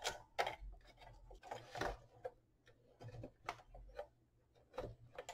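Faint, irregular clicks and light rattles of hands handling insulated wires and spade connectors on a power inverter's circuit board.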